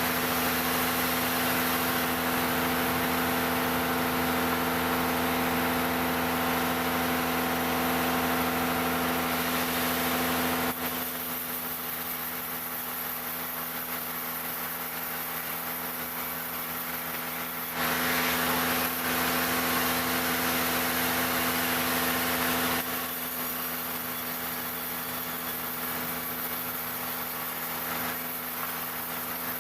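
Engine-driven wood-cutting machine running steadily while sawing jackfruit timber. Two louder, hissier stretches: the first ten seconds or so, and about five seconds a little past the middle.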